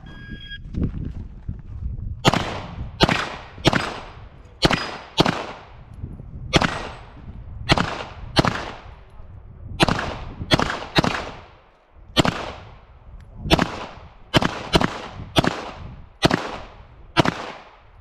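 A shot-timer start beep, then a long string of pistol-calibre gunshots in practical shooting, fired singly about half a second apart with short pauses between groups. Each shot rings out with an echo.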